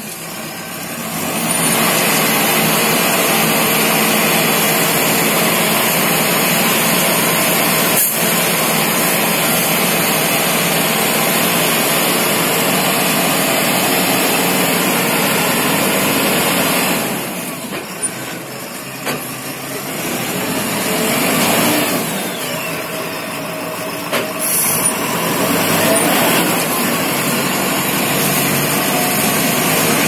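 Engine of a 4.0 m³ self-loading concrete mixer running steadily as the machine manoeuvres and works its loading bucket; the noise eases off for a few seconds past the middle, then picks up again.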